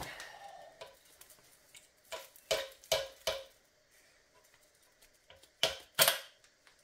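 Short metallic clicks and clinks of tools and metal parts being handled at an automatic transmission's bellhousing. There is a sharp click at the start, four lighter ringing clinks in quick succession about two seconds in, and two louder ones near the end.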